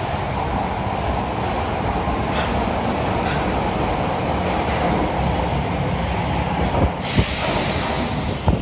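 Midosuji Line 10 series subway train departing and running past on the rails: a steady rumble of wheels and motors. About seven seconds in a rush of hiss comes in, with a few sharp knocks near the end as the last car goes by.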